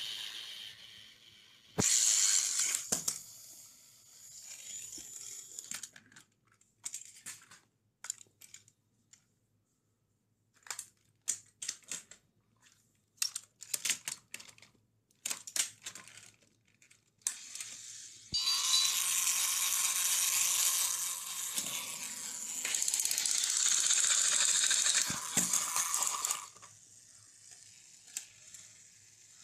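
Sharp plastic clicks and clatter from a motorised toy train and its plastic track. There is a loud rushing noise about two seconds in, and a steady whirring noise for about eight seconds in the second half.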